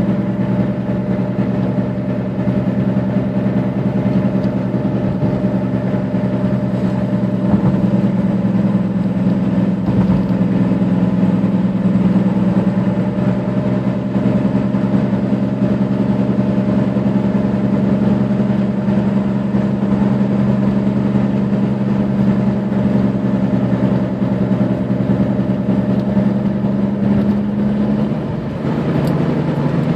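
Lexus IS300 on the move: a steady pitched drone over a lower hum, the upper tone dropping away about two seconds before the end.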